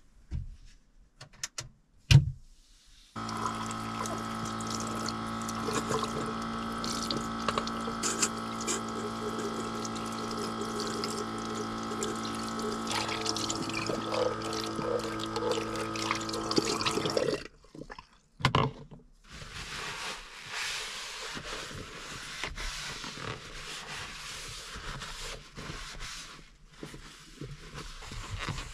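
A few knocks, then a small water pump runs steadily with water splashing into a stainless steel sink for about fourteen seconds and cuts off suddenly. A softer steady hiss follows.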